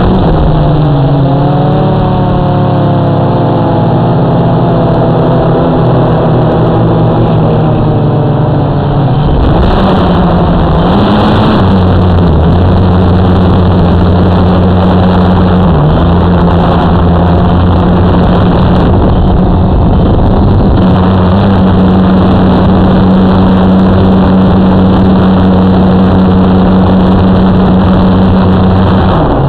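Motor and propeller of a model aircraft running steadily, heard from the camera on board over a rush of air noise. The tone shifts about nine seconds in, then holds steady.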